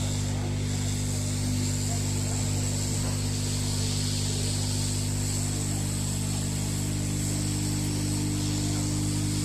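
Hot air rework station blowing steadily: a constant low hum under an even hiss of blown air, as used to loosen a phone's charging jack.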